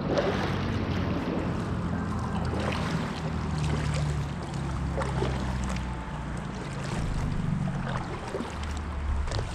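Water sounds around a kayak on the move, with a few short splashes from paddle strokes over a low, steady rumble.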